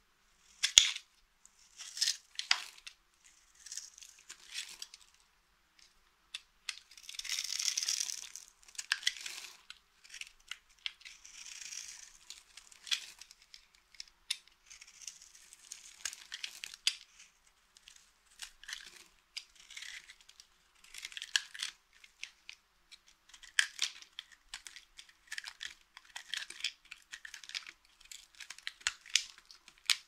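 Snap-off utility knife blade shaving and cutting a bar of dry soap, the soap crunching and flaking off in quick, irregular scrapes with sharp clicks, and one longer scrape about eight seconds in.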